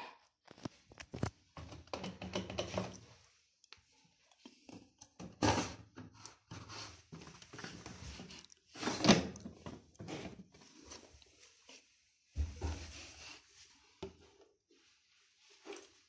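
Candy CS 105 TXT R washing machine drum turning in short bouts with pauses between, the wet laundry inside tumbling with thuds and rustles over a low motor hum.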